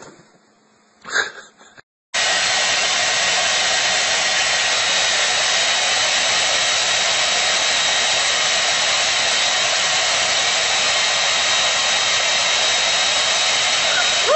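Handheld hair dryer blowing steadily, with a faint high whine from its motor, starting abruptly about two seconds in. Before it, a couple of short knocks.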